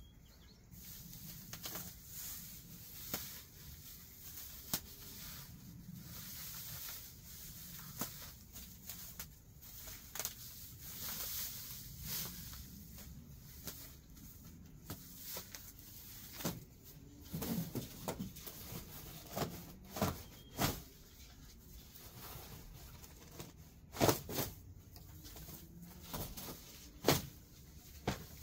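Dry grass and crabgrass being pulled up by hand and handled: uneven rustling and tearing with many small crackles and a few louder snaps.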